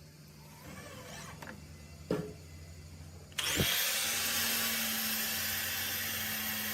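A power tool switches on abruptly about halfway through and runs steadily with a loud hiss. Before it there is a low hum and a single knock.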